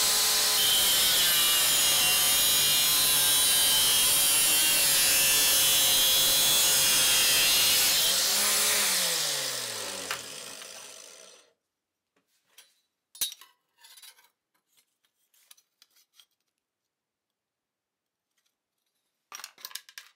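Angle grinder, mounted as a chop saw, cutting through a steel bar with an abrasive cut-off disc with a steady grinding screech. About eight seconds in it is switched off and its pitch falls as the disc winds down. After that come a few light clinks and knocks of metal being handled.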